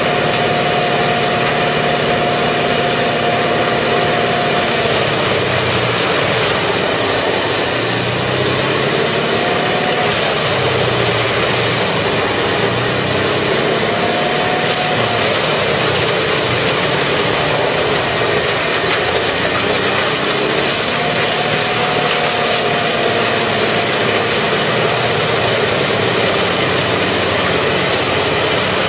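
Large trailer-mounted wood chipper running under load, chipping tree trunks fed in by an excavator grapple. A loud, steady engine-and-cutting noise with a whining tone that sags and recovers several times.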